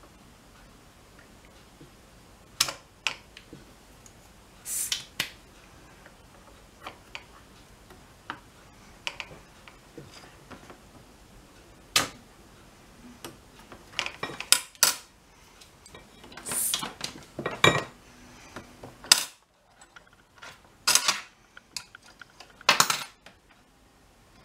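Irregular sharp clicks, light metallic clinks and short scrapes from hand work on an amplifier circuit board with a soldering iron. They come sparsely at first and more often in the second half.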